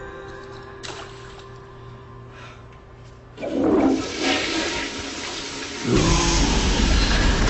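A toilet flushing: a rush of water starts about three and a half seconds in and swells into a louder, deeper rush about six seconds in.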